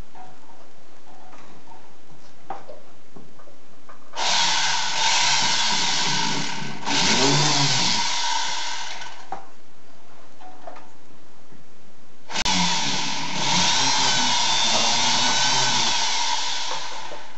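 Flexible-shaft rotary tool running, its burr grinding into a cast pewter lamp part in two spells of about five seconds each: the first starts about four seconds in and breaks off briefly halfway through, the second starts about twelve seconds in.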